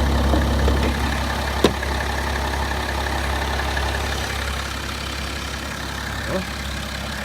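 BMW 530d F10's 3.0-litre inline-six turbodiesel idling steadily, heard from under the hood. There is a single sharp click about a second and a half in.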